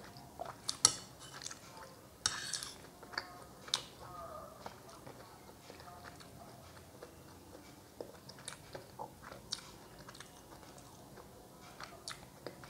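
Close-up sounds of a person chewing soft, syrupy rosogolla, with wet mouth clicks and smacks. A few sharper clicks stand out in the first few seconds.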